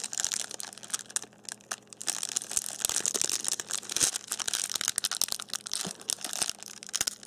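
Shiny plastic snack sleeve from a box of Toppo sticks crinkling and crackling as it is handled and worked open, with many small sharp crackles.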